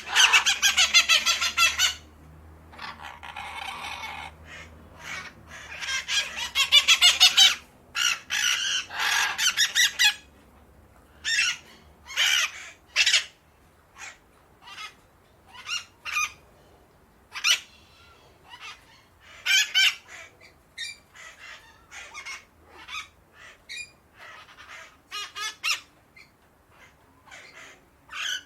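Ducks quacking. Loud runs of rapid, repeated quacks fill roughly the first ten seconds, then give way to scattered single quacks and short runs.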